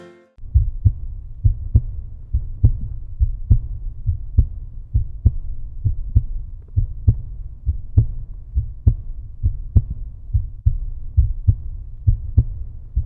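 A deep, steady heartbeat-like thumping added to the soundtrack, about one beat a second, each beat with a softer second thump.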